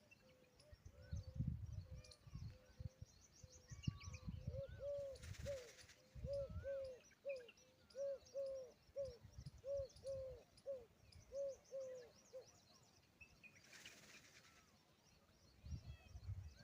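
A peahen giving a run of short, arched honking calls, about a dozen in all and often in pairs, from a few seconds in until near the end. Small birds chirp faintly, with low rumbling thumps and two brief hisses.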